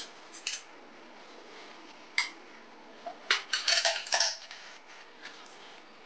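Light metallic clicks and clinks of small steel tooling being handled: a steel ER20 collet slid over a dial indicator's shank, with single clicks and then a short cluster of clinks about three and a half seconds in.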